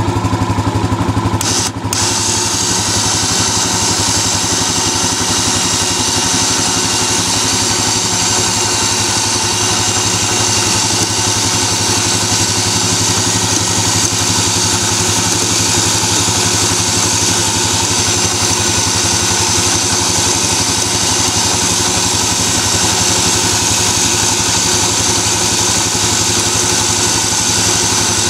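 Electric winch on a Yamaha Grizzly 700 ATV, running steadily as it spools steel cable onto its drum, starting with a click about two seconds in. Underneath, the ATV's single-cylinder engine idles with a steady low hum.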